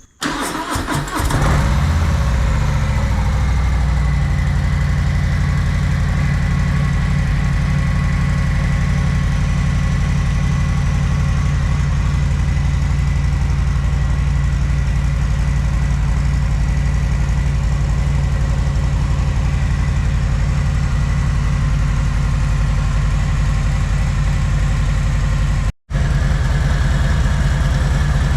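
Harley-Davidson Street Bob's Milwaukee-Eight 114 V-twin through its stock exhaust, starting up and settling within a couple of seconds into a steady idle. The sound cuts out for a moment near the end.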